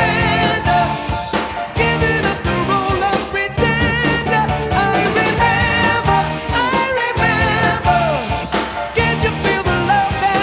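Background music: a song with a sung vocal over a band with drums.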